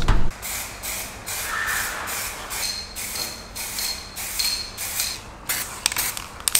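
Spray paint hissing from the nozzle in repeated short bursts.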